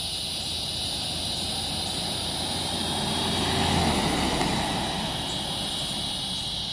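A passing engine rumble swells and fades, loudest about four seconds in, over a steady chorus of crickets.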